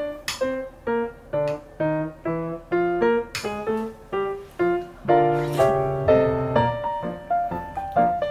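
Background piano music: a melody of struck notes at an even pace, about two a second, over low chords.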